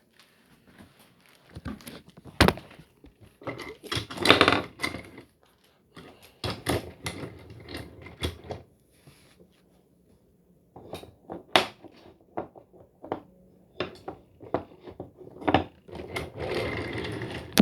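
Irregular clicks, knocks and crinkling from model train packaging being handled and opened: plastic and cardboard rustling, with a longer crinkly stretch near the end.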